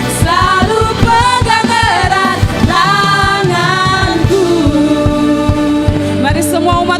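A worship band playing a praise song with drums, and voices singing the melody.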